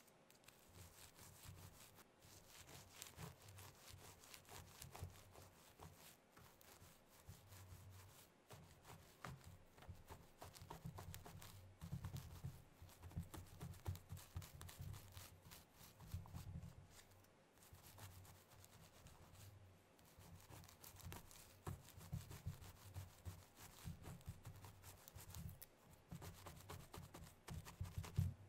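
Very long stiletto nails scratching and rubbing through hair and over the scalp: a quiet, continuous crackle of many fine scratches, with soft low bumps as the hands move over the head.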